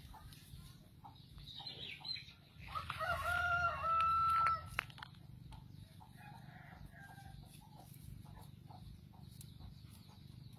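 A rooster crows once, about three seconds in: a call of about two seconds that ends on a long held note. Faint scattered clicks and rustles otherwise.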